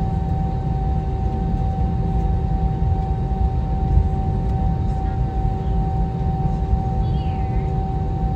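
Airliner cabin noise: a steady low rumble from the jet engines and cabin air system, with a constant hum over it.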